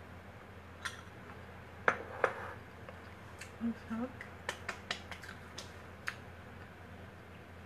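A metal spoon clinking against a small ceramic bowl: two sharp, ringing clinks about half a second apart, followed by a run of lighter clicks and smacks of eating.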